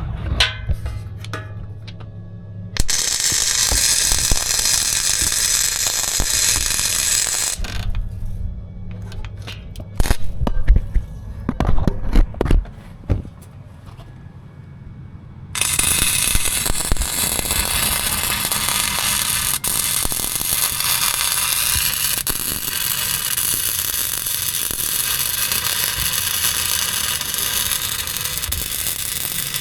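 Electric welding arc crackling steadily in two long runs, about three seconds in and again from about halfway on, while a washer and nut are welded onto a rusted, broken bolt so it can be turned out. Between the runs there is a low hum with scattered clicks and knocks.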